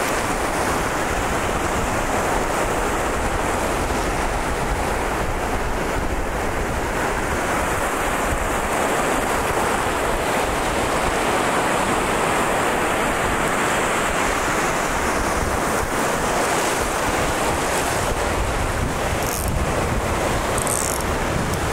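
Small surf waves breaking and washing up the shallow beach, a steady rush of water, with wind buffeting the microphone.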